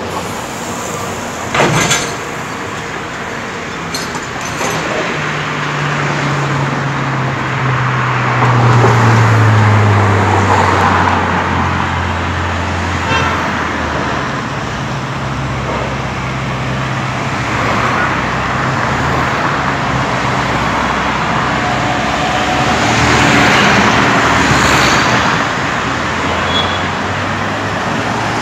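A Ferrari sports car's engine driving past and away, its exhaust note loudest about nine seconds in and falling in pitch as it pulls away, over steady city traffic noise. A single sharp knock about two seconds in.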